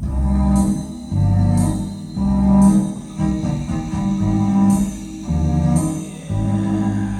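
Recorded funk-jazz music played through four-way hi-fi loudspeakers driven by a KT88 valve amplifier, picked up by a phone: a deep bass line of held notes that change about once a second, with a bright percussion hit about once a second and no vocals.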